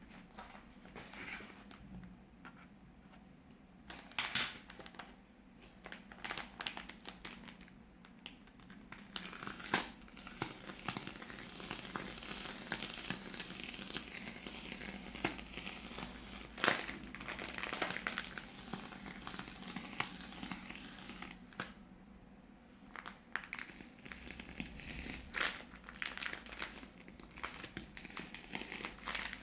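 Plastic piping bags crinkling and crackling as they are handled and squeezed, with a few sharp clicks. The crinkling is sparse at first, dense through the middle, eases off briefly, then picks up again near the end.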